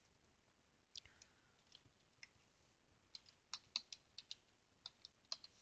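Faint keystrokes on a computer keyboard: a few scattered taps, then a quicker run of about ten keys from about three seconds in. This is a password being typed at a sudo prompt.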